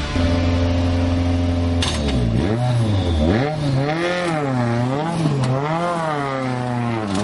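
Citroën DS3 WRC rally car's 1.6-litre turbocharged four-cylinder engine idling steadily, then, from about two seconds in, revved up and down in repeated blips, about four times.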